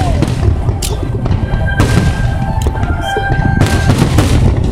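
Fireworks show: aerial shells bursting in about half a dozen sharp booms spread through a few seconds. They sound over a heavy low rumble of wind buffeting the microphone.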